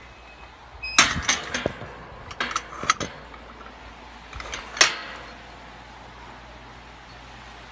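A run of sharp clicks and rattling knocks about a second in and again around two to three seconds, then one louder, sharper knock about five seconds in.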